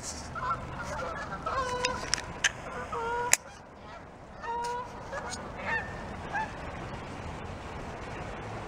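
Canada geese honking in flight as a flock flies in to land, a run of calls over the first six seconds or so. A single sharp click cuts in about three seconds in.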